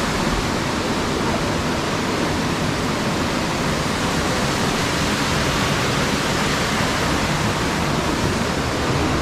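Steady rush of water pouring down a waterfall over rock.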